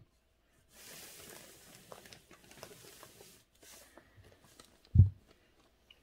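Soft rustling and handling noises for a few seconds, then a few small clicks and one dull thump about five seconds in.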